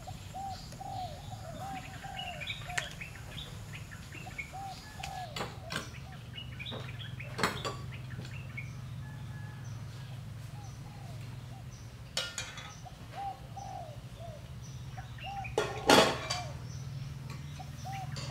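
Doves cooing over and over in short repeated phrases, with a steady low hum underneath. A few sharp clinks of metal utensils cut through, the loudest near the end.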